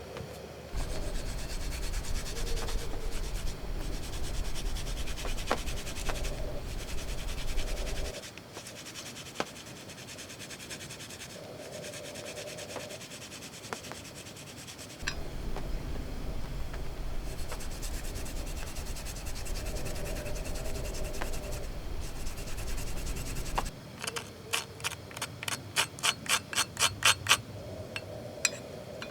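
Rubbing and scraping noise in two long stretches, then a quick run of about a dozen sharp taps near the end.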